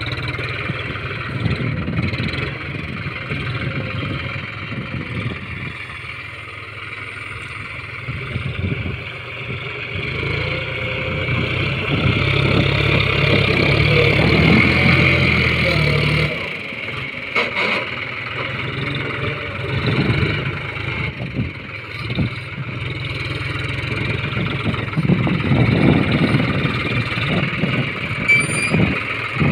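John Deere tractor's diesel engine running under load as its front loader works sand. It grows louder and works harder while the bucket digs into the pile near the middle, then drops back suddenly.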